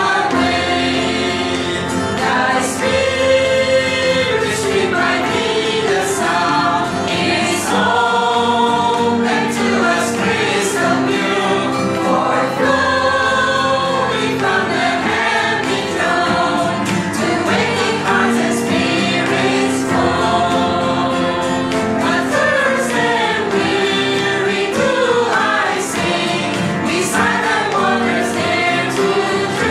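Small mixed choir of women and men singing an English hymn, phrase after phrase of held and moving notes.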